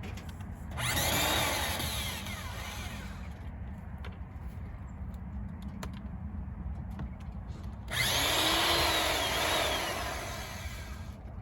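Cordless drill running in two bursts of two to three seconds each, about seven seconds apart, its motor whine rising and then falling away, with its battery charge nearly spent.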